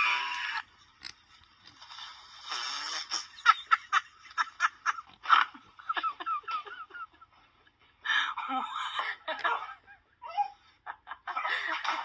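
The soundtrack of a funny-animal clip compilation playing through a tablet's small speaker: people laughing and talking in short, uneven bursts, with a few sharp knocks, the sound changing as the clips change.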